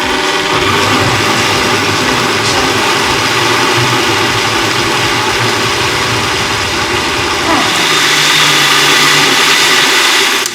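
Electric blender running steadily on cooked bone soup, puréeing the broth. Its tone shifts about three quarters of the way through, and it stops abruptly at the end.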